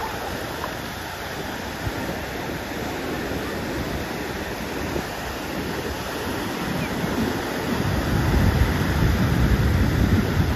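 Ocean surf breaking and washing up onto a sandy beach, a steady rush. A low rumble from wind buffeting the microphone grows louder over the last few seconds.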